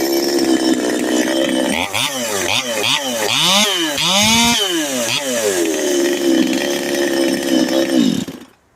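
Ported Stihl two-stroke chainsaw running at high revs in frozen hardwood. Its pitch dips and rises several times in the middle, then the engine winds down and stops near the end.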